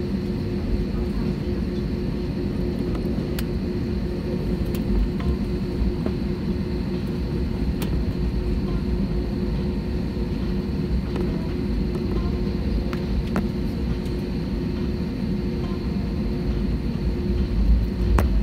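Jet airliner cabin noise while taxiing: a steady low rumble of the engines at idle and the wheels rolling on the taxiway, with a steady hum and a faint high whine over it. A few faint clicks, and a louder low jolt near the end.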